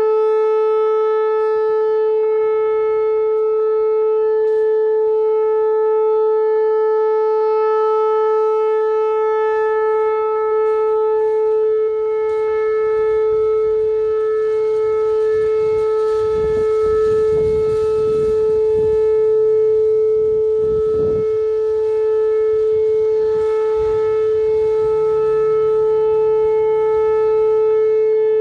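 Outdoor tornado warning siren sounding its weekly test: one loud, steady pitch, held without rising or falling. A low rumble joins it for a few seconds about midway.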